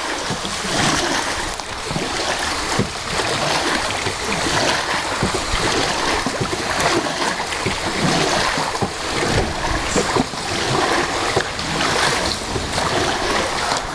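Steady rushing water noise from a small boat moving on the river, with a constant rumble and many small splashes.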